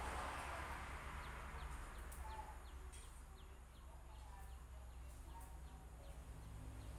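Faint chickens clucking, with a bird giving a run of short high chirps, about two or three a second, over a low steady hum.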